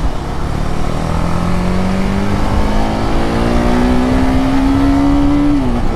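TVS Apache RR 310's single-cylinder engine pulling hard under acceleration, its note rising steadily as the bike gathers speed, then dropping near the end.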